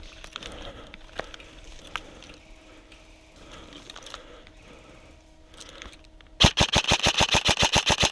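Airsoft gun firing a rapid full-auto burst, about ten shots a second for almost two seconds, near the end. Before it, faint scattered shots and rustling.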